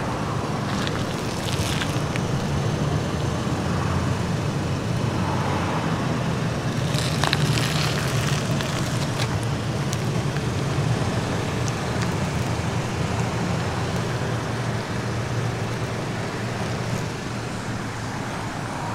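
Steady low hum of a running vehicle engine, with road traffic noise and a few brief scuffing noises about a second and a half in and again around seven to eight seconds in.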